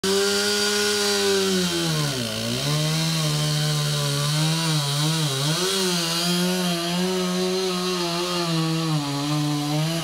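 Chainsaw running at high revs while cutting wood. Its pitch drops sharply and recovers about two seconds in, then wavers for a while as the chain bogs under load before holding steady.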